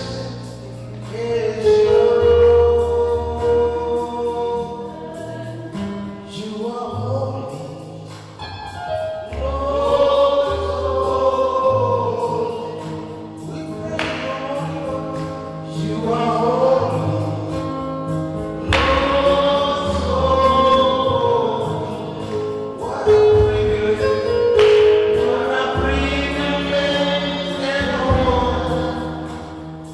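Gospel choir singing over instrumental backing with sustained bass notes.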